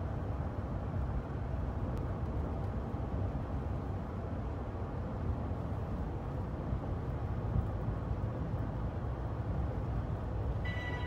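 Steady low rumble of a car on the move, heard from inside the cabin: road and engine noise. Music comes in near the end.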